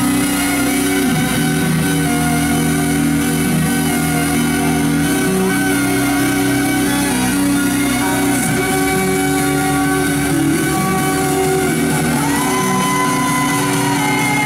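Loud trance music played live over an arena sound system: sustained synth chords, and about twelve seconds in a synth line glides up into a held high note.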